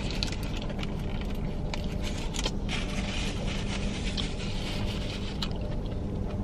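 Steady low hum of a car's idling engine heard from inside the cabin, with a few faint clicks.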